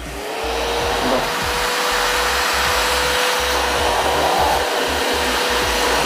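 A Multipro 3-in-1 wet/dry vacuum cleaner's 650-watt motor spinning up just after being switched on, then running steadily. There is a level whine over a rush of air as it sucks through a narrow crevice nozzle.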